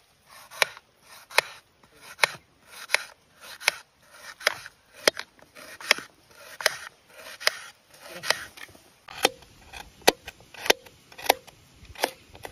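Small knife slicing through a raw onion and a carrot held in the hand, each cut a crisp snap, about one every 0.8 seconds.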